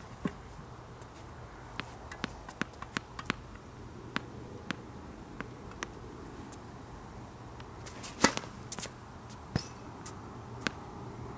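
Tennis ball bounced again and again on a hard court in short sharp taps, then a serve: one loud sharp crack of racket strings on ball about eight seconds in, followed by a few fainter knocks. A steady low hum runs underneath.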